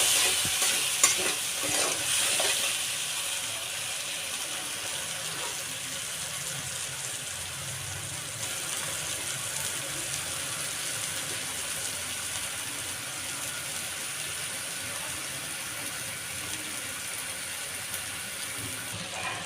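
Masala paste sizzling in oil in a pan as it is fried down and stirred, with a few sharp spatula knocks in the first two seconds. The sizzle is louder for the first couple of seconds, then settles to a steady quieter hiss.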